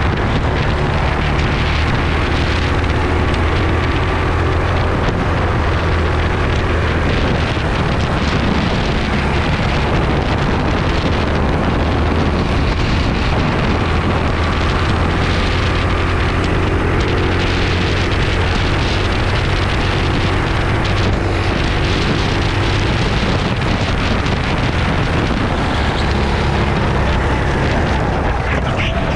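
Racing kart's single-cylinder engine running at racing speed, heard from an onboard camera under heavy wind noise on the microphone; the engine pitch rises and falls as the kart goes through the corners.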